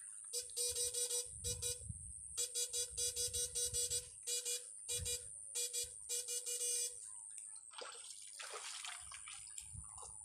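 Homemade electric-fishing shocker buzzing in short pulses, several a second, in runs as it is switched on and off, stopping about seven seconds in.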